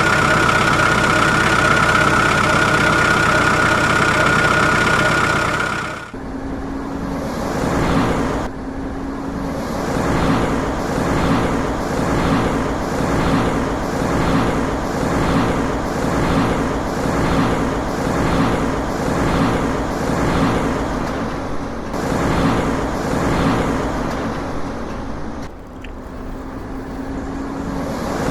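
A heavy-equipment truck engine sound. It is dense and steady for about six seconds, then drops and settles into a pulsing rhythm that repeats about once a second.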